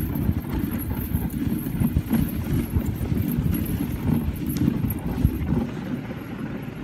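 Dog sled pulled by a husky team over snow: a steady low rumble from the sled running on the snow, with the dogs' paws padding in a quick rhythm. It eases a little near the end.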